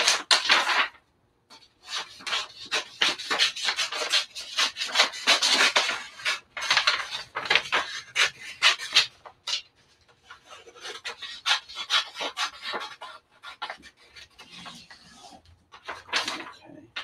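Sheet of sublimation transfer paper being handled and trimmed: irregular rustling and scraping of paper, fainter in the second half.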